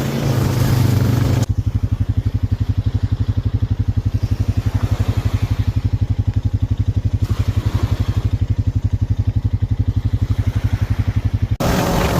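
ATV engine under throttle for about a second and a half, then idling with an even low pulse of about ten beats a second, then picking up again near the end.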